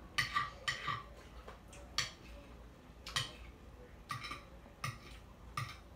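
Close-miked eating sounds: about eight short, sharp clicks and taps at uneven intervals as a smoked sausage is cut with a fork and spoon over a plate and chewed.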